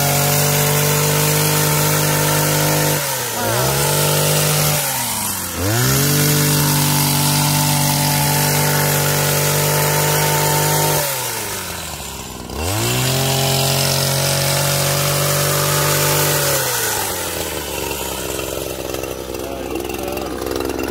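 Petrol hedge trimmer's small engine running at high revs while cutting a shrub, the throttle let off to idle and opened up again three times, then left idling for the last few seconds.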